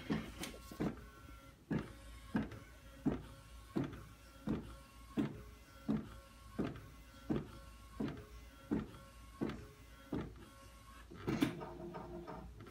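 Direct-to-garment printer running, with a regular knock about every three quarters of a second and a motor whine between knocks. A louder clatter comes near the end.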